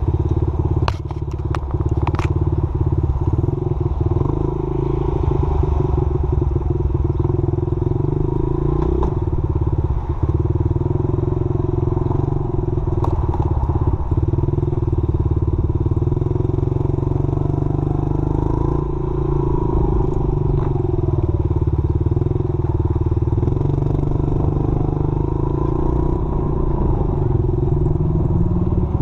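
Small dirt bike's engine running while it is ridden, its pitch rising and falling a little with the throttle. There are a few sharp clicks about a second in, and the engine revs up near the end.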